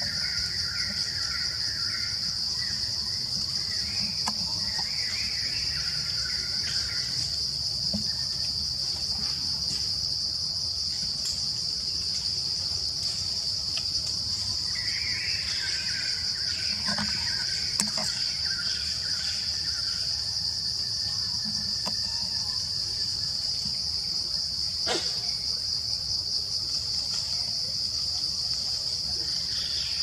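Forest insects droning steadily on one high pitch. A second, lower buzzing swells and fades twice, and there are a few sharp clicks, the clearest late on.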